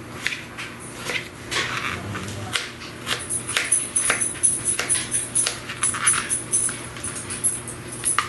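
Paring knife slicing strawberries on a thin plastic cutting mat: repeated short taps of the blade reaching the board, settling into a quicker, regular run of cuts from about three seconds in.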